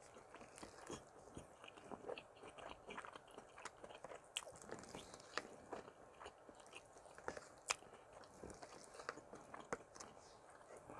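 Close-up eating sounds: chewing and wet mouth smacks of rice and stew eaten from a wooden spoon, with many irregular sharp clicks of the spoon and mouth.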